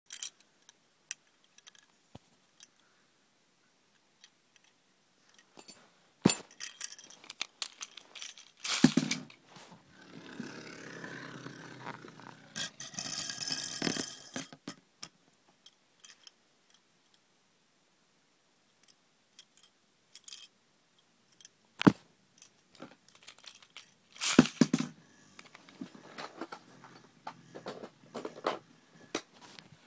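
Hard plastic Beyblade parts being handled and fitted together: scattered sharp clicks and rattles, with a few louder bursts of rustling and scraping and quiet stretches between.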